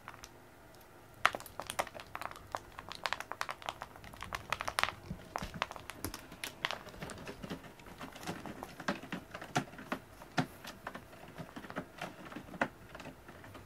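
Rapid, irregular light taps, clicks and rustles of a silicone-tipped cat teaser wand being flicked and dragged across a foam floor mat while a cat bats at it.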